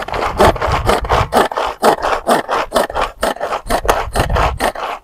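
Hand-operated mini food chopper chopping red onion, its blades spun by repeated quick pulls: a steady train of short rasping whirrs, about four a second.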